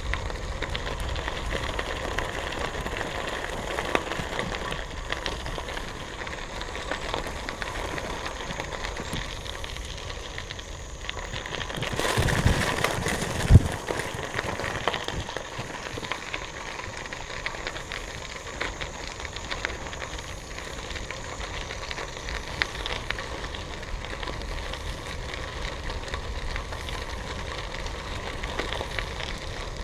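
Bicycle tyres crunching and crackling over a gravel trail, a steady gritty noise. About twelve seconds in it grows rougher and louder for a couple of seconds, with one sharp knock at the end of that stretch.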